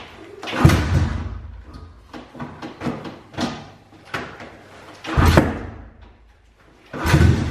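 A pitbike engine being kick-started: three hard kicks, about half a second in, about five seconds in and about seven seconds in. Each is a thump with a short low rumble as the engine turns over against compression, with lighter clicks and knocks from the kick-starter between them.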